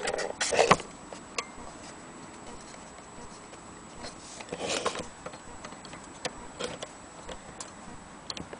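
Scattered sharp mechanical clicks and light knocks, with two louder clattering clusters near the start and about halfway through, from the metal parts of an antique gramophone being handled.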